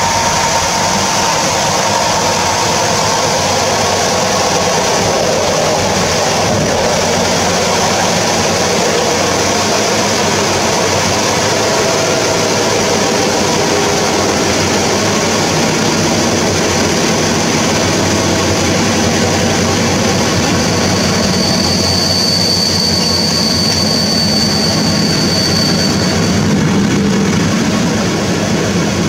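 Steady running noise of an EP07P electric locomotive moving along the line, heard from inside its cab. A high, steady whine joins in for about five seconds near the end.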